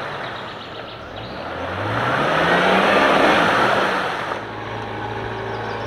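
4x4's engine revving up as its wheels churn through a muddy puddle, with a loud rush of splashing mud and water loudest about three seconds in. After about four seconds the splashing stops abruptly and an engine runs steadily.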